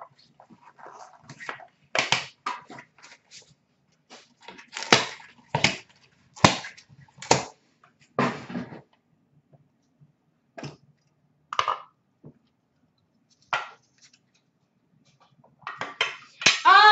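Hard clear plastic card cases clacking as they are opened and handled: a dozen or so short, sharp clicks and knocks spread out with quiet gaps between.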